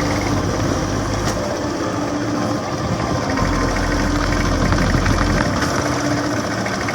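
Yamaha SR125's single-cylinder four-stroke engine idling steadily on its freshly rebuilt carburettor.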